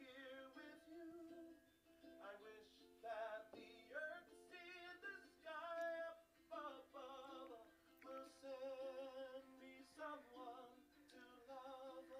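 Quiet background song: a voice singing with a wavering vibrato over plucked-string accompaniment.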